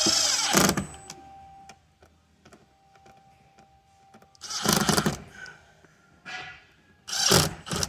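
Power drill driving screws in three short bursts, whining as the motor spins up and down, as the speaker bracket's Phillips screws are snugged tight.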